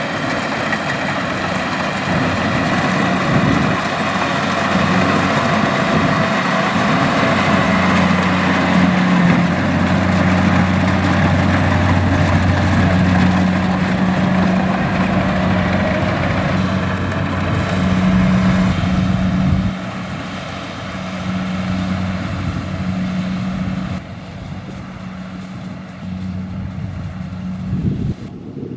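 Kubota DC-70X rice combine harvester's diesel engine running steadily under load, a constant droning hum with machinery noise. It drops in loudness about two-thirds of the way through.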